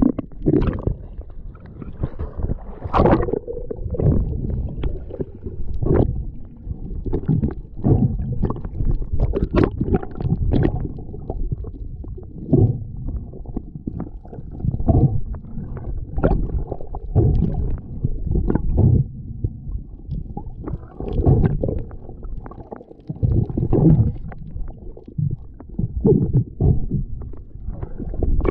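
Muffled underwater water noise picked up by a camera below the surface: irregular low rumbling surges with gurgles and a few sharp clicks, as water moves over the camera and the swimming diver.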